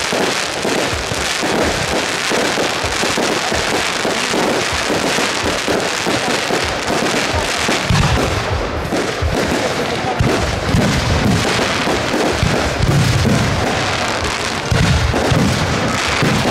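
Aerial fireworks shells bursting in quick succession over continuous dense crackling, with heavier low booms from about halfway through.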